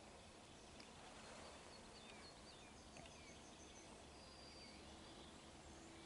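Several small songbirds chirping and singing faintly in quick, slurred notes over a steady background hiss.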